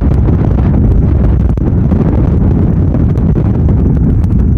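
Strong gale wind buffeting the microphone in a steady low rumble, over storm waves breaking against a stone sea wall at high tide.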